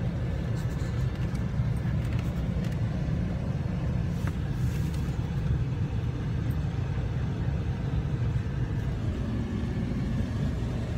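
Steady low rumble of a van running, heard from inside its cabin.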